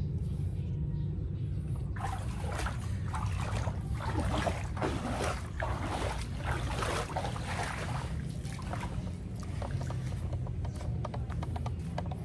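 Rustling and crackling handling noise from a handheld phone being moved about, over a low steady rumble. The crackling sets in about two seconds in and thins out near the end.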